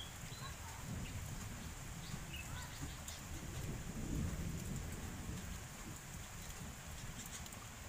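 Rain ambience with a low rumble that swells about four seconds in, and a few short whistled notes from a sooty-headed bulbul in the first three seconds.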